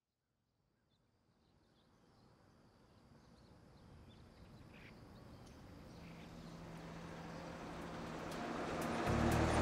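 A vehicle engine and outdoor road noise fade in slowly and grow steadily louder, with a few faint bird chirps. About nine seconds in, a school bus's engine comes in clearly and louder.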